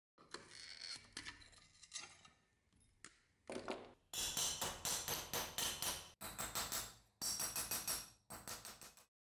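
Hammer striking the cleaver's steel tang on a steel anvil block. The quick ringing metallic blows come about four a second in several short runs from about four seconds in, after a few seconds of faint, quieter work.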